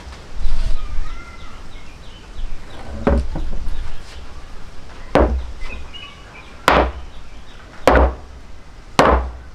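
Wood-on-wood knocks from a large wooden mallet, a log head on a hardwood handle, handled against a wooden workbench: a soft thud about half a second in, then five sharp knocks roughly a second apart.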